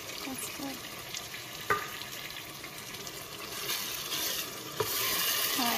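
Vegetables and tomato sauce sizzling in a stainless steel pot as they are stirred with a spatula, with two sharp knocks about three seconds apart. The sizzle grows louder near the end. The sizzling is the sign that little water is left in the pot.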